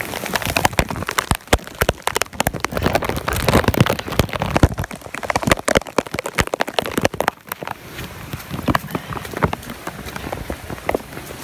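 Heavy rain in a torrential downpour, with a dense, steady patter of sharp, close raindrop hits throughout.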